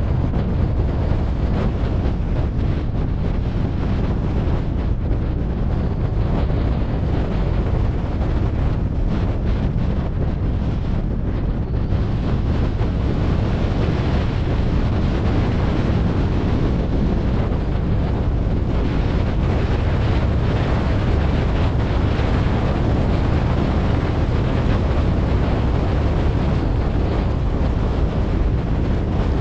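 Wind buffeting the microphone of a roof-mounted GoPro on a moving car: a steady, dense rush of noise heaviest in the low end. The footage is played back at four times normal speed.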